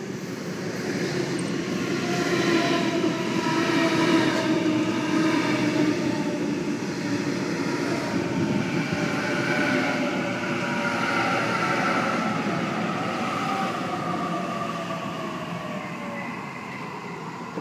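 Sydney Trains A-set (Waratah) electric train pulling into a platform and slowing, its traction motors whining in several tones that slowly fall in pitch over the rumble of the wheels as it brakes.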